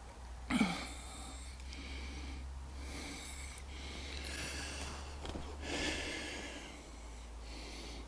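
A person breathing heavily close to the microphone, several loud breaths in and out, with a short low grunt about half a second in as he straightens up from a crouch.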